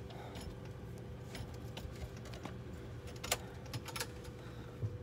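Steady low drone of a small airliner's cabin, with a faint steady whine over it, and a few light clicks and rattles after about three seconds.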